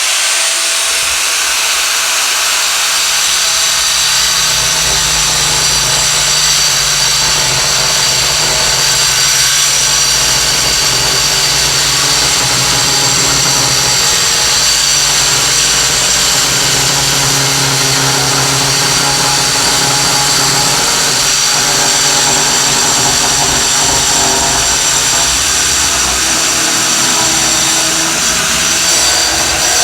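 Electric grinder running steadily at speed, cutting into a compression-fixture endplate, with a high whine over a continuous grinding rumble.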